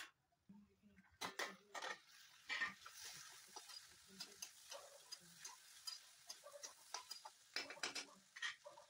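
A metal spatula scraping and knocking against a metal kadai as sliced onions and green capsicum are stirred. A faint sizzle of frying starts about three seconds in.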